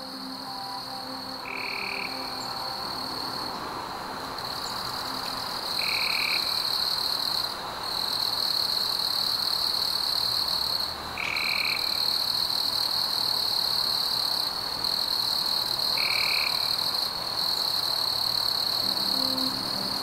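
Rainforest frog chorus: a dense, steady high-pitched trilling, with a short lower call repeating about every five seconds. Soft background music fades out in the first few seconds and returns near the end.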